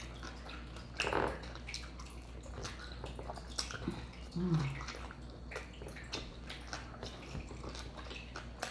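Close-miked eating of mac and cheese: wet chewing clicks and smacks from the mouth, with a short falling hum about four and a half seconds in.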